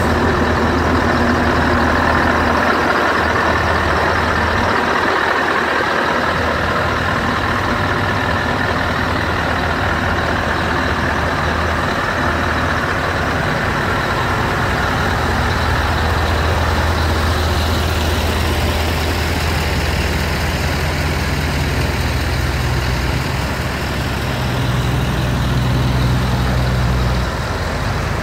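Scania R500 truck's V8 diesel engine idling steadily, its low hum growing stronger about halfway through and easing just before the end.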